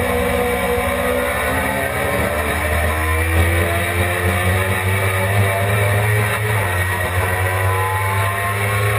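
Suzuki GSX-R600's inline-four engine pulling hard under acceleration, its pitch rising steadily, with wind noise rushing over the onboard camera at speed.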